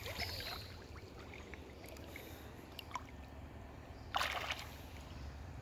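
Faint water lapping and trickling, with one short splash about four seconds in as a caught fish on a stringer thrashes at the surface.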